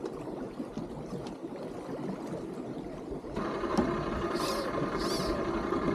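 Mercury outboard motor comes on about halfway through and runs with a steady hum, over a faint hiss of moving water. Two short high-pitched chirps sound near the end.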